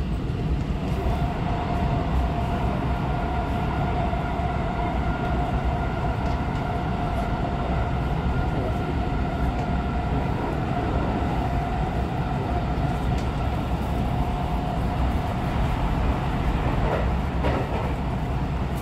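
Electric commuter train running at speed, heard from inside the carriage: a steady rumble of wheels on rails with a steady whine at one pitch that fades out near the end.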